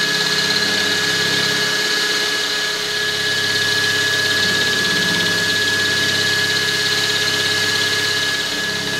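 Milling machine spindle running with a hand-ground two-flute bullnose endmill cutting a slot in 7075 aluminium: a steady high whine over a continuous cutting hiss. The cutter is cutting cleanly, "very good".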